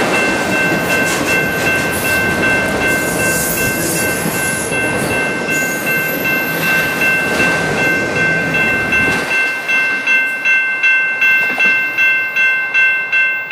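A freight train of autorack cars rolls past with a steady wheel-and-rail rumble that stops abruptly about nine seconds in as the last car clears. Throughout, a grade-crossing bell dings at about two strikes a second, standing out clearly once the train is gone.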